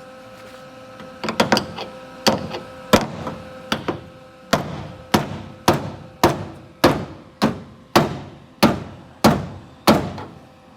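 Hammer blows ringing on the dented steel quarter panel of a 1959 Ford Galaxie as the flattened metal is worked back out. A few irregular strikes come first, then a steady run of about two blows a second, each with a brief metallic ring.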